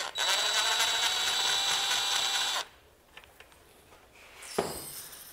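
Cordless power driver with a socket running steadily for about two and a half seconds, spinning a bolt out of a motorcycle springer fork link, then cutting off; a few faint metal clicks follow.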